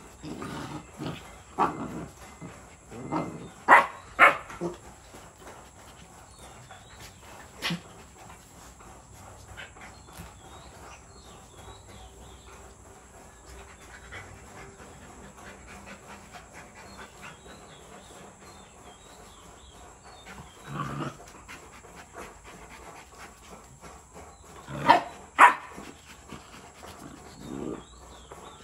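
Rottweiler puppy and its Rottweiler mother play-fighting: short barks and growls in a busy cluster over the first few seconds, the loudest two sharp barks about four seconds in, then a lull, and another pair of sharp barks near the end.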